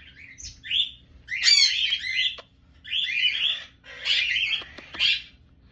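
Small pet parrot squawking and chattering in a string of short, high-pitched calls, about five bursts with brief gaps between them.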